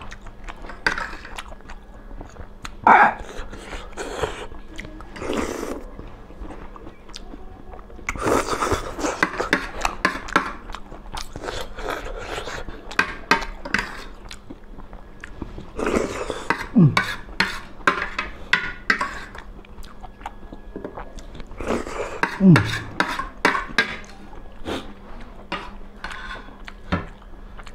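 Forks and spoons clinking and scraping on ceramic plates while two people eat instant noodles, with chewing in between. There are many short sharp clicks, and a couple of brief falling hums at about 17 and 22 seconds in.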